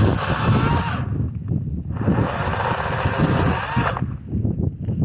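Kobalt 40V Max cordless electric chainsaw running in two bursts while delimbing a cedar, stopping about a second in and again about a second before the end.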